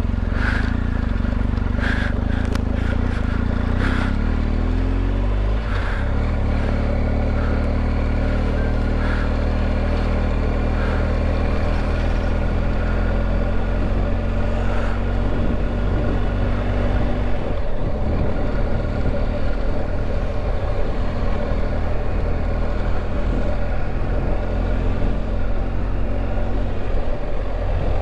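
Motorcycle running along the road. Its engine note climbs over the first five or six seconds, then holds steady.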